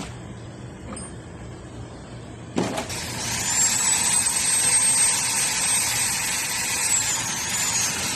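Electric motor spinning up with a rising high whine about two and a half seconds in, running steadily, then winding down from about seven seconds in. A couple of faint clicks come before it starts.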